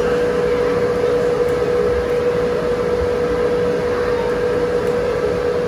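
Steady machine whir with one constant mid-pitched hum, like a large electric fan or blower running without change.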